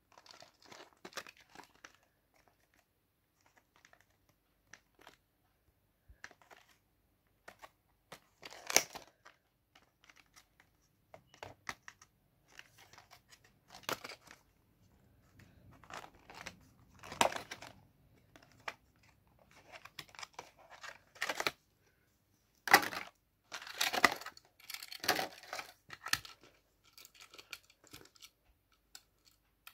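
A cardboard-backed plastic blister pack being torn and crinkled open by hand. It is an irregular string of short rips and crackles, the loudest a little past two-thirds of the way through.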